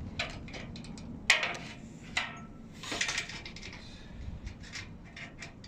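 Sheet-metal roofing trim being handled and worked by hand: scattered light metallic clinks, taps and knocks, the sharpest about a second in.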